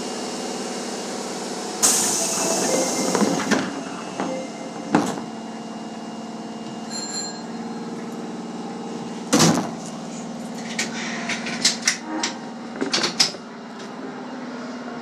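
Subway train heard from the cab: a steady electrical hum, with a burst of air hissing about two seconds in and a string of sharp clicks and knocks, bunched together from about eleven to thirteen seconds in.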